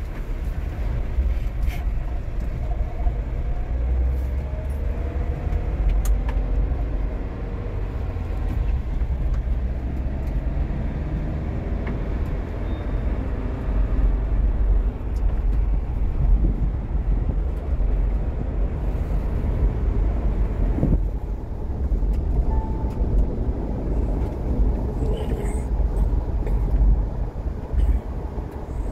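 Cabin noise of a Mahindra Thar diesel on the move: a steady deep rumble of the diesel engine and road noise, with a faint engine note rising several times between about 4 and 12 seconds in.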